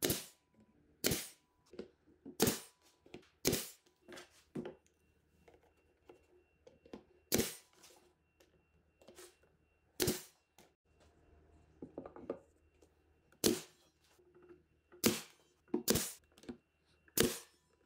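RIDGID nail gun firing nails, about ten sharp shots spaced one to three seconds apart, with lighter clicks and knocks from handling the trim strips in between.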